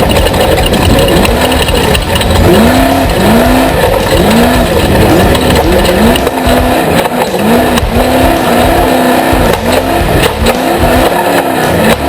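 Off-road race vehicle engine revving hard, its pitch climbing again and again in quick succession over a steady noise of engine and tyres.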